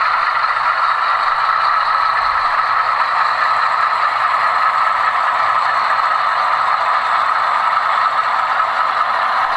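HO-scale model train rolling along the track: a steady rolling hiss with a light rattle of the cars' wheels on the rails.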